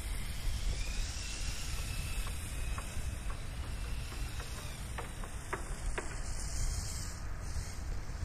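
Wind buffeting the microphone in a steady low rumble. Through it comes the faint high whine of a brushless RC drift car's motor, dying away in the first few seconds as the car moves off, and a few faint ticks near the middle.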